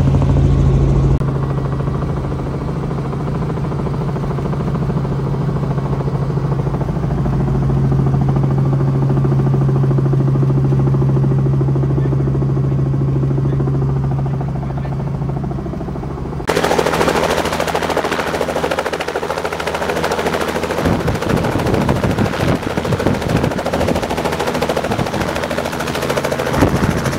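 Light helicopter in flight heard from inside the cabin: a steady low drone of rotor and engine. About sixteen seconds in it changes to a helicopter on a helipad heard from outside, its rotor blades making a loud, rapid chopping.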